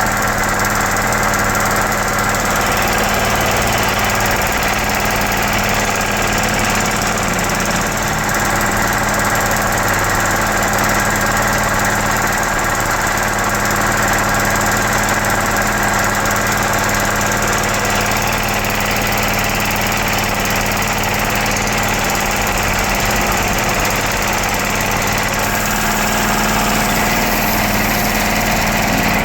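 United 5 HP air compressor running steadily: its 3.7 kW four-pole electric motor drives the pump with an even, unchanging machine drone.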